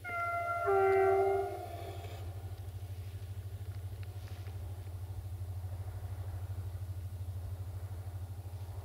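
Distant diesel passenger train's horn sounding one chord of under two seconds: a higher note first, a lower note joining partway through, and both stopping together. A steady low rumble carries on afterwards.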